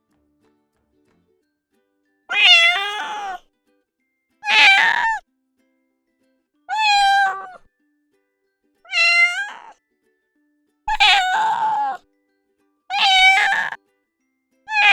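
A domestic cat meowing over and over, one drawn-out meow about every two seconds. The first comes about two seconds in, six follow in all, and a seventh starts right at the end.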